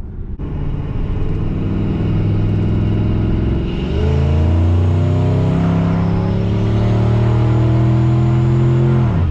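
Single-turbo 5.4 L Triton V8 of a 2003 Ford F-150, heard from inside the cab, accelerating hard at full throttle with boost at about 12 psi. The engine note climbs steadily in pitch, dips briefly about four seconds in, then climbs again until it falls off sharply near the end as the transmission upshifts.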